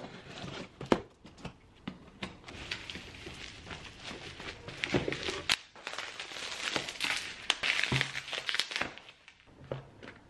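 Bubble wrap and plastic packaging crinkling and rustling as a parcel of books is unwrapped by hand, with scattered small knocks and taps from the cardboard box and books being handled.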